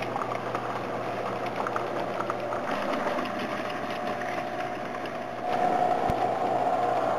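S gauge model freight train running past: the American Flyer gondola cars' wheels rolling over the track with light ticks and a steady hum. About five and a half seconds in, the sound grows louder and takes on a steady whine as the two S Helper switcher locomotives come by, with one sharp click soon after.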